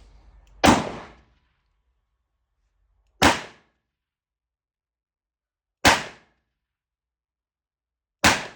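Four shots from a Smith & Wesson Model 500 revolver firing .500 S&W Magnum rounds, evenly spaced about two and a half seconds apart, each a sharp bang with a brief fading tail.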